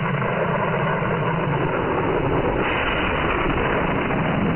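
Shortwave AM receiver audio: a steady rush of static and noise on the WBCQ 7490 kHz signal, with no clear speech or music.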